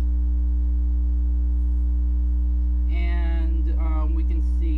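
Loud, steady electrical mains hum, with a woman's voice speaking briefly about three seconds in and again near the end.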